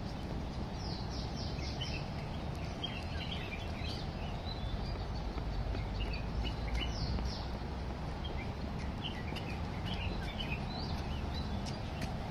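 Small birds chirping, with a quick run of about five falling notes about a second in and another short run near seven seconds, over a steady low background rumble.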